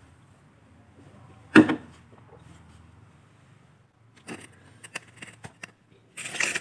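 Small clicks and taps of chopsticks against styrofoam takeaway boxes while eating, in a cluster about four seconds in, and a short scraping rustle near the end. A single short, loud sound about a second and a half in is the loudest thing.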